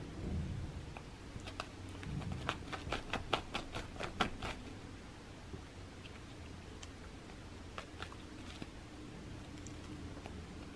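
Soft clicking from a cat biting and clawing at a felt carrot toy on a fleece cushion: a quick run of clicks, about four a second, starting a second and a half in and lasting about three seconds, then a few scattered clicks.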